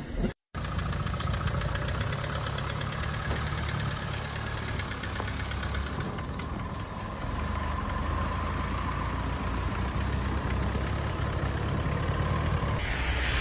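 A motor vehicle's engine running steadily at a low, even pitch. Near the end, a different and louder noisy sound cuts in.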